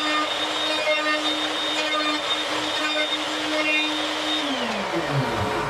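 Power saw's electric motor running at a steady pitch, then switched off about four and a half seconds in and spinning down with a falling whine.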